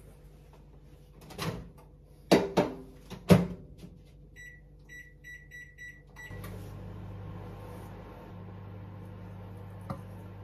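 Microwave oven: its door clunks open and shut a few times, then a run of about six short beeps sounds as it is set. It then starts up with a steady low hum.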